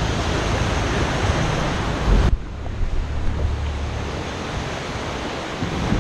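Sea water washing and splashing against the rock walls of a sea cave, with wind rushing on the microphone and the low steady hum of a small tour boat's motor underneath. The loud rushing drops away suddenly a little over two seconds in, leaving the quieter water and hum.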